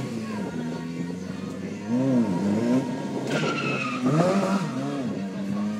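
Motorcycle engine idling steadily and revved in quick blips that rise and fall, three times. A tyre squeals for about a second midway through.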